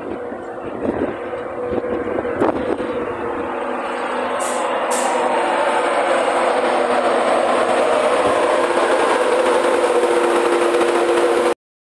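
Class 91 electric locomotive arriving at the head of an InterCity 225 train, growing steadily louder as it draws alongside and slows. A whine falls slowly in pitch over a steady hum, with two short high hisses about four and a half seconds in. The sound cuts off suddenly near the end.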